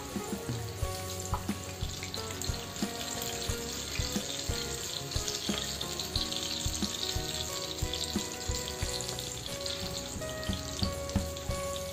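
Batter-coated green chillies frying in hot oil in a pan: a steady sizzle with scattered sharp pops and clicks.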